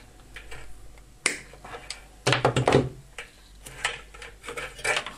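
Handling noise from pliers and electrical cable being worked against a plastic heater casing: scattered sharp clicks and taps with light rustling, and a short clatter of louder knocks a little past two seconds in.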